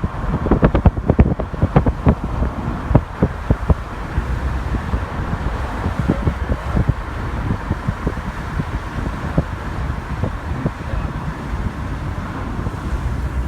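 Road and wind noise from a moving vehicle, heard from inside: a steady low rumble with wind buffeting the microphone. Many sharp knocks and rattles come in the first few seconds, then grow sparse.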